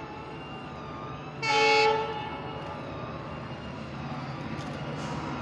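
A WDP-4D diesel locomotive sounds one short blast of its multi-tone air horn about one and a half seconds in, over the steady low rumble of the approaching train, which grows slightly louder near the end.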